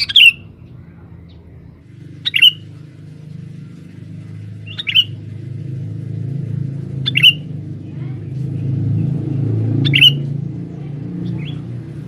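Sooty-headed bulbul (kutilang) giving five short, sharp calls at an even pace, about one every two and a half seconds, as a trapping lure recording. A low steady rumble lies underneath, swelling a little in the middle.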